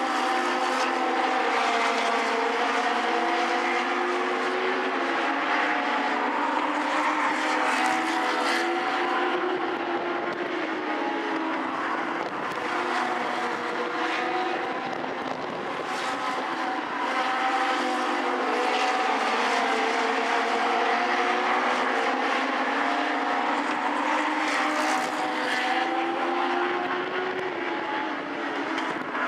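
Several Legends race cars' Yamaha motorcycle engines running around a short oval, their overlapping pitches rising and falling as the cars go through the turns and straights.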